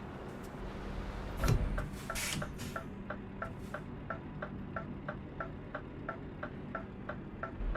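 Car turn-signal indicator ticking evenly, about three ticks a second, inside the cabin over a low engine and road hum, with a few louder clicks in the first couple of seconds.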